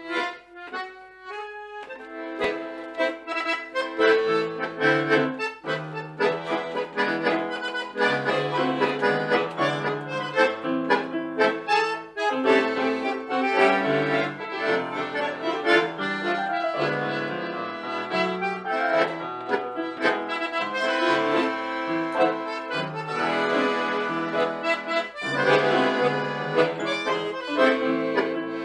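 Tango trio of bandoneon, piano accordion and electronic keyboard playing a tango. It opens with a few single notes, and the full ensemble comes in about two seconds in.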